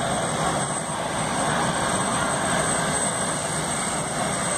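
Steady engine noise with a rushing hiss and a thin, high, unchanging whine.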